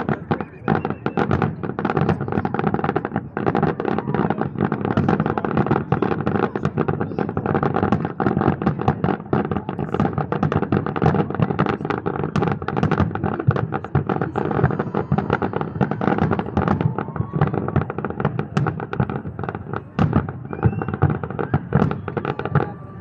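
Fireworks going off continuously, with many sharp bangs and crackles in quick succession and no pause.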